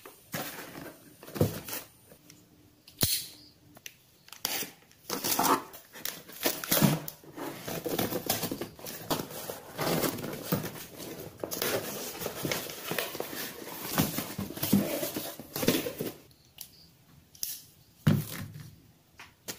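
A cardboard shipping box being opened by hand: packing tape and a label peeled and torn off, cardboard flaps and wrapping rustling, with a few sharp knocks as the box is handled.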